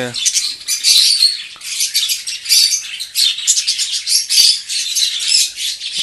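A colony of budgerigars chattering and squawking non-stop, many birds calling over one another in high-pitched chirps, with a couple of light knocks.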